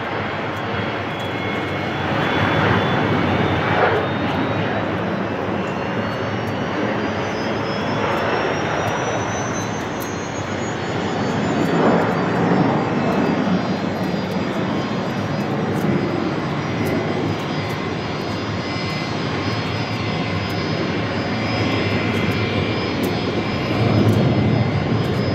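The two GE CF34-8E turbofans of an Embraer 175 at takeoff thrust: a steady jet roar with a high whine that climbs slowly in pitch over the first several seconds, as the airliner rolls down the runway, lifts off and climbs away.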